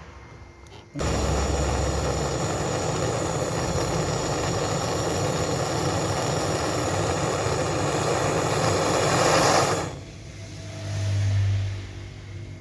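Gas brazing torch lit and burning with a steady hiss while the new filter drier and capillary tube joints of the fridge's refrigerant line are brazed. It starts suddenly about a second in and cuts off near the end, followed by a short low hum.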